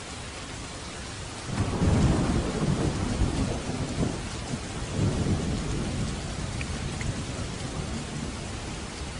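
Steady rain falling, with a roll of thunder breaking in about a second and a half in, rumbling loudest just after, swelling again around five seconds and slowly dying away.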